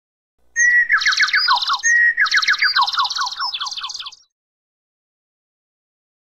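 A bird singing: two similar phrases, each a short clear whistle followed by a fast run of falling slurred notes with higher buzzy notes over them. The song starts about half a second in and ends about four seconds in.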